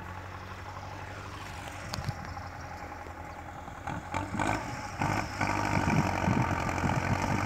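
Tractor diesel engine running steadily under load as it pulls a laser-guided land leveller through the soil. It grows louder from about four seconds in as the tractor comes closer.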